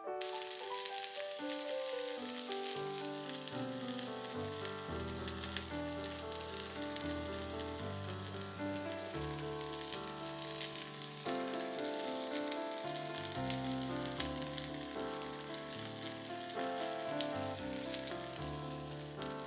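Korean pancakes (jeon) frying in oil in a pan, with a steady sizzle and crackle. Piano background music plays under it.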